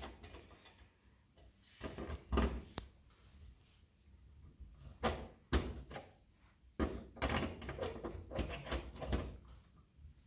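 Knocks, clicks and rattles of a metal wall-mount bracket being handled and fitted onto the back of a flat-screen TV. There are a few separate knocks in the first half, then a busier run of clicks and clatter in the second half.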